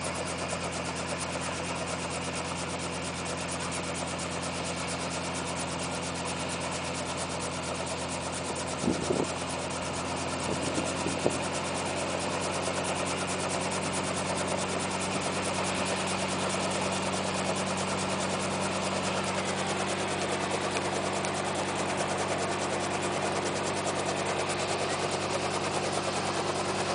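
Helicopter engine and rotor running steadily, getting louder about ten seconds in as it powers up for take-off, with a few short knocks just before.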